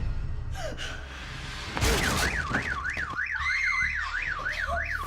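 A loud crash about two seconds in, then a home burglar-alarm siren warbling up and down, about three sweeps a second: an intruder has tripped the alarm.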